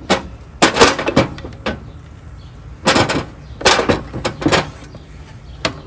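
Lawn tractor battery's plastic case knocking and scraping against the tractor's battery compartment as it is worked down into a snug fit, in several bursts of sharp knocks with a last single knock near the end.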